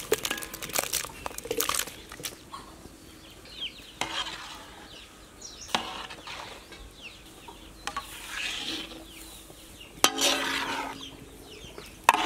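Chicken pieces tipped from a steel bowl into a large iron kadai of gravy, then stirred with a long metal ladle: scraping and knocking of metal on the pan over the bubbling gravy. Chickens cluck in the background, and the loudest is a single chicken's call about ten seconds in.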